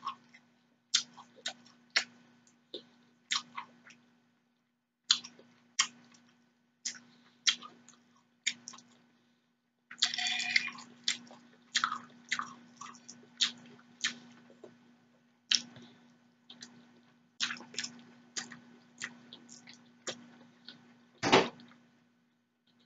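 Close-miked wet chewing and lip-smacking of seafood pasta, an irregular string of sharp mouth clicks and smacks. A louder knock comes near the end, over a faint steady hum.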